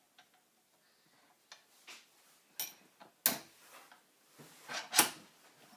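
Handling of a Tormek SVG-320 planer blade jig as its angle is adjusted on the sharpener: a scattering of light clicks, with two sharper knocks about three and five seconds in.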